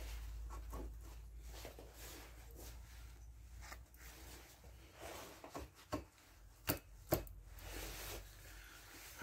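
Faint rubbing and light ticks of hands working an aluminium cylinder head down onto the engine, with a few sharp knocks about two-thirds of the way through, two of them close together.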